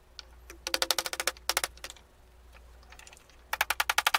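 Small hammer tapping quickly and lightly, driving a bolt's hex head into the recess chiseled in a walnut handle to force-fit it. There is one run of about a dozen rapid taps about a second in, a few single taps, then another rapid run near the end.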